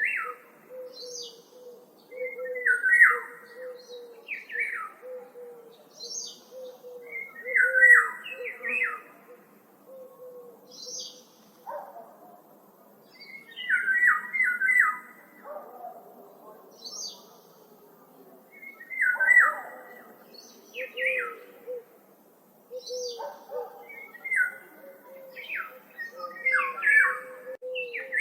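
Songbirds singing in woodland: short, bright, chirping phrases repeating every two to three seconds, with higher thin notes between them and a low note repeating steadily underneath.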